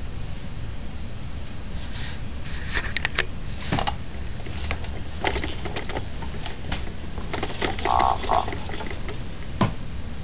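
Steady low room hum with scattered small clicks and rattles from the plastic toys of a baby's activity jumper being bumped, and a brief wavering tone about eight seconds in.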